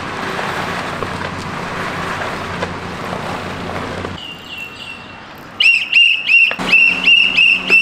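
A car driving up, then about four seconds in a security guard's whistle: one held note, then a rapid string of short, loud blasts, about three a second, signalling the car to stop.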